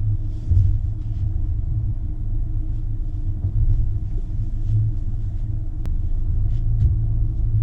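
Steady low rumble of a car driving, with a faint steady drone above it.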